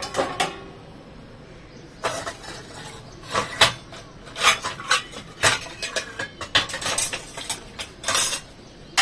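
Dishes being handled and set into a dishwasher rack: a string of separate clinks and clatters of plates and bowls knocking together, beginning about two seconds in.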